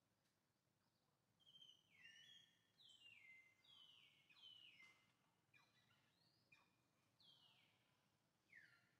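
Faint bird calls: a repeated series of short, falling chirps, about one a second, starting a second and a half in, over quiet outdoor hiss.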